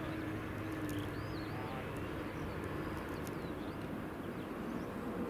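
Boeing 767 jet engines at idle while the airliner taxis: a steady low rumble with a steady hum. Small birds chirp now and then over it.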